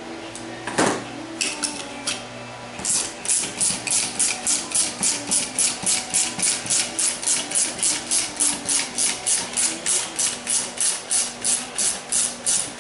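Ratchet wrench clicking as it turns the screw of a clutch spring compressor on a Turbo 400 transmission's direct clutch drum. A single knock about a second in, then from about three seconds on a steady run of sharp ratchet clicks, about three a second.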